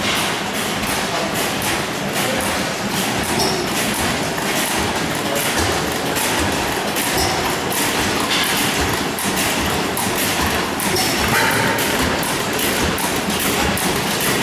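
Several antique gas engines running together: a steady clatter of overlapping knocks and exhaust pops, with a brief high ping every few seconds.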